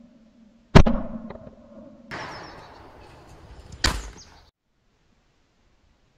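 Two shots from a 12-gauge over/under shotgun, about three seconds apart, each a sharp crack with a short ringing tail. The second is heard over a steady outdoor background hiss, and about half a second after it the sound cuts to silence.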